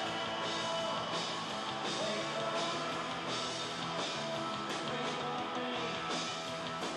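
Live rock band playing, with electric bass and guitar over a steady beat. A sharp hit cuts through about every three quarters of a second.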